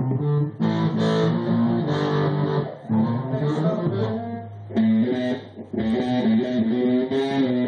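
Electric guitar and bass guitar playing a rock passage together, held chords and notes in short phrases with brief breaks between them.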